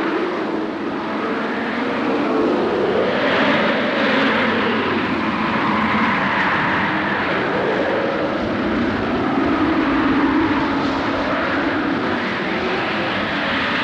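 Wind sound effect: a steady rushing howl that swells and eases in slow gusts, with whistling tones sweeping up and down in pitch.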